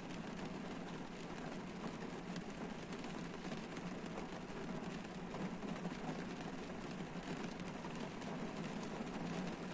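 Rain falling on the roof and windshield of a parked car, heard from inside the cabin: a steady, dense patter of drops.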